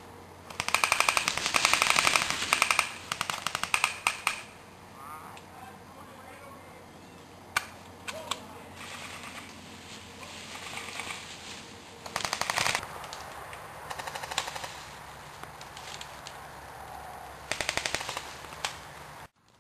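Airsoft electric guns (AEGs) firing full-auto bursts of rapid shots: a loud burst of about two seconds near the start, a few shorter bursts right after, and more bursts about halfway through and near the end.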